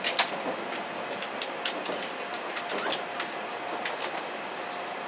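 Cabin noise inside a Shinkansen N700-series car running at speed: a steady rushing hiss with scattered sharp clicks and light creaks.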